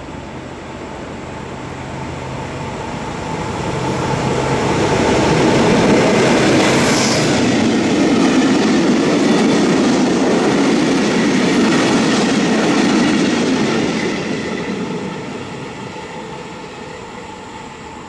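Diesel locomotive D.345.1142, a diesel-electric, and its train of historic carriages rolling past. The engine's steady hum comes first, then the rumble of the wheels builds, stays loud for several seconds and fades away.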